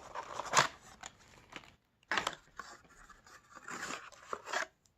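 Cardboard and plastic packaging of a toy blind box being handled, rustling and scraping in a few short bursts, the longest near the end.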